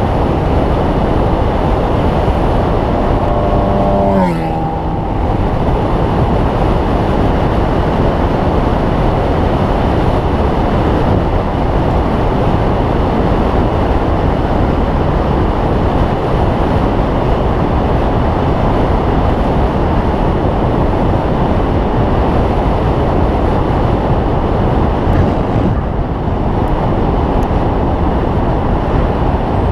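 Steady loud wind rushing over the microphone of a handlebar-mounted GoPro as a bicycle rides along at speed, mixed with road noise. About four seconds in, a brief tone falls in pitch.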